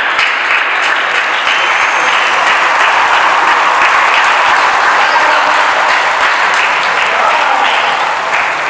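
Small crowd of spectators clapping steadily, applauding the end of a table tennis match.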